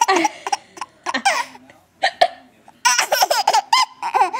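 Baby laughing in runs of quick, high-pitched peals, the longest run in the second half, with a single short hiccup a little after two seconds in.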